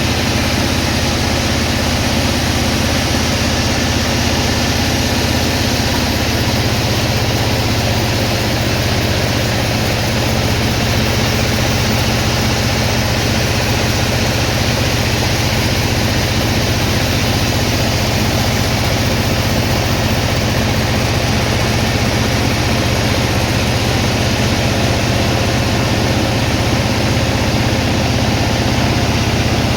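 Heavy sawmill machinery running steadily, a loud, even engine drone whose low hum grows stronger about six seconds in.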